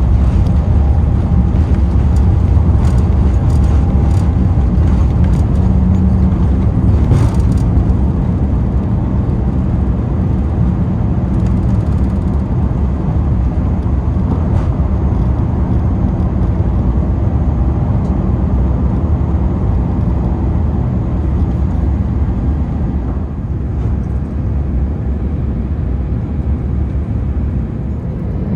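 Airbus A350-900 cabin noise: a loud, steady low rumble of the engines and airflow, with a few faint clicks.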